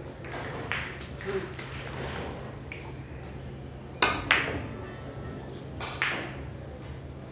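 Carom billiard balls clicking during a three-cushion shot. A sharp click of the cue striking the cue ball comes about four seconds in, followed closely by a second ball click, and another sharp ringing click comes about two seconds later. Fainter clicks come earlier.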